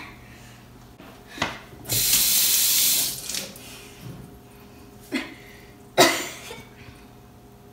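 Kitchen sink tap running for about a second, with a few short, sharp sounds around it.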